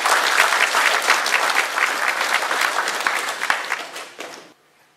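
Audience applauding, a dense crowd clapping that fades out shortly before the end.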